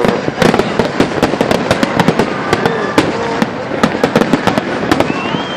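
Fireworks salute: a rapid, continuous string of sharp bangs and crackles from bursting shells, with a thin whistle starting near the end.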